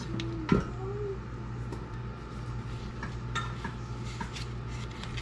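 Light kitchen handling sounds: shredded cheese shaken from a plastic bag onto a tortilla on a paper plate and the wrap being rolled, soft rustles and clicks with one sharper click about half a second in, over a steady low hum.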